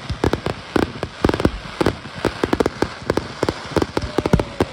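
Fireworks display: a rapid, irregular barrage of bangs and crackling pops, many reports in quick succession.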